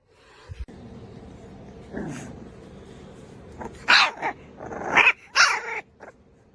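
A dog barking: three loud barks between about four and five and a half seconds in, after a softer, lower call about two seconds in.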